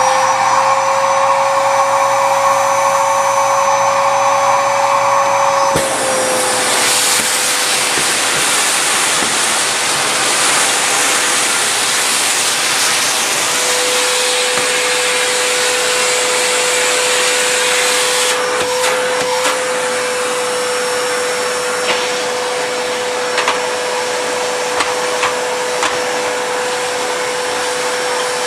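Numatic James tub vacuum cleaner running steadily, a constant motor whine over a loud rushing hiss. About six seconds in the tone of the suction changes to a broader, brighter hiss, and a few sharp clicks near the end are grit being sucked up.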